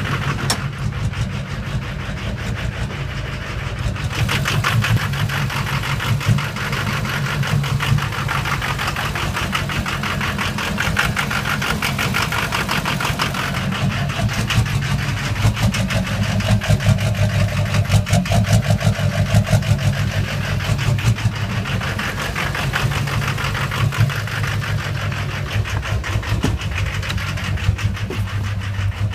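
Duramax V8 turbodiesel engine running with a fast, steady clatter. It is misfiring, which the owner puts down to a bad injector since it makes no black smoke.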